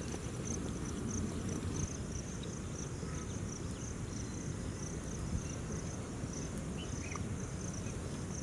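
Insects chirping in a steady, even pulse of about three chirps a second, over a low, steady rumble.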